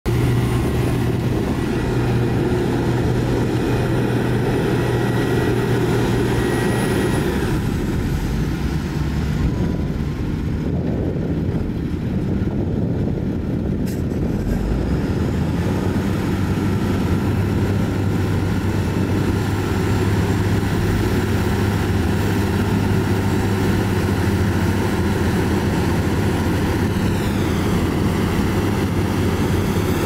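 Heavy diesel engines of bulldozers and dump trucks running steadily, with a faint high tone that glides up and down near the end.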